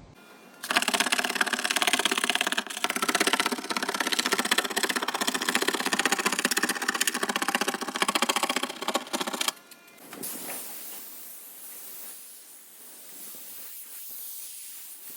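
A power tool used in car paint prep runs with a fast, buzzing rattle for about nine seconds, then cuts off; a quieter steady hiss follows.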